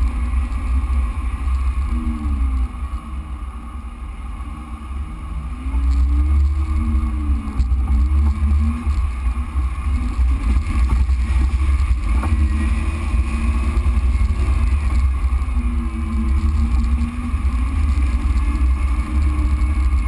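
Jeep Wrangler JK engine pulling along a dirt trail at low speed, its revs rising and falling over a deep, steady rumble. It is a little quieter for a few seconds near the start, then louder again.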